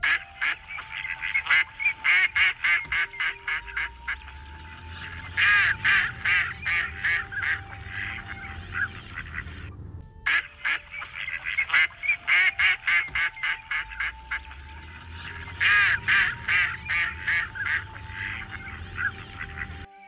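Ducks quacking in rapid runs of calls, with two louder outbursts about a quarter and three quarters of the way through. After a brief break halfway, the same stretch of calls seems to repeat.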